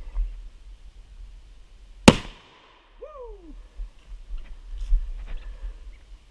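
A single shot from a .410 shotgun firing a slug: one sharp, loud report about two seconds in, with a short echoing tail. About a second later a short whine falls in pitch.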